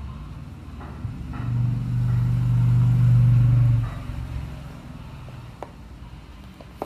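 Motor vehicle engine passing by: a low, steady hum that swells about a second and a half in, holds for a couple of seconds, then fades. Faint handling clicks, and a sharp click near the end.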